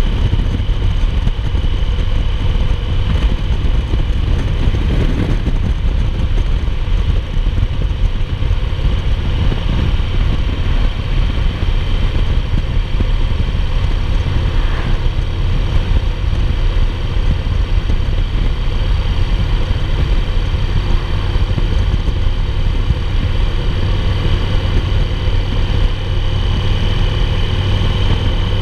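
A 2008 Yamaha Roadliner's air-cooled V-twin engine running steadily at highway cruising speed, heard from the saddle together with the rush of the wind. The low rumble stays even throughout, with no gear changes or speed changes.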